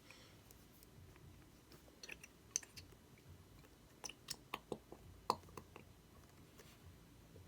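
Faint, scattered sharp clicks and taps of plastic slime-kit containers and packaging being handled and opened, in a small cluster about two seconds in and a busier run about four to five seconds in.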